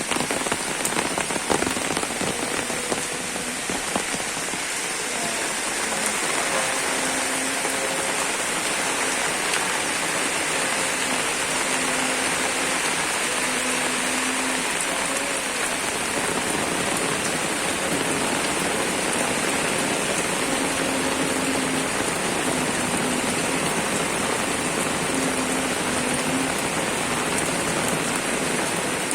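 Steady rain falling, with sharper individual drops striking close by in the first few seconds. Faint short low tones come and go through the middle.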